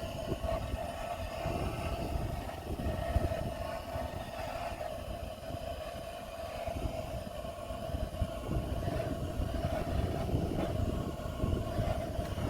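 Strong wind rumbling against the microphone, with a steady high hum held underneath.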